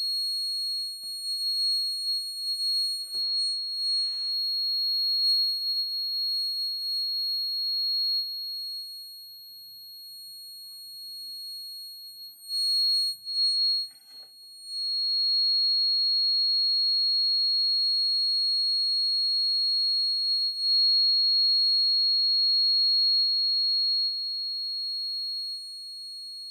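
Electronic buzzer sounding one continuous high-pitched tone: the robot's crack-detection alarm, set off by a crack found on the left track. It drops in level for a few seconds midway, then comes back louder and steady.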